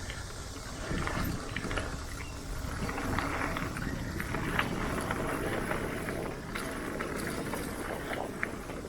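Mountain bike rolling fast down a dirt trail: tyres on dirt and rocks with a steady low rumble, and frequent short clicks and knocks as the bike rattles over the bumps.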